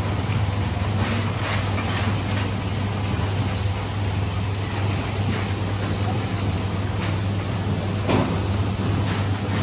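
Mandarin sorting machine running: a steady low hum under a constant rattle and rumble of mandarins rolling over the rollers and perforated grading screen, with a few louder knocks.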